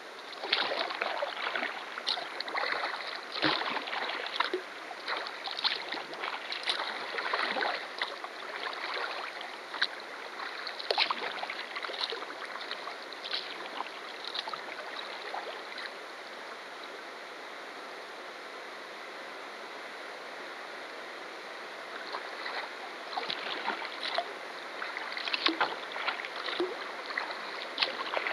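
Kayak paddle blades dipping and splashing in irregular strokes over a steady rush of river water. The strokes stop for several seconds past the middle, leaving only the steady water sound, then start again.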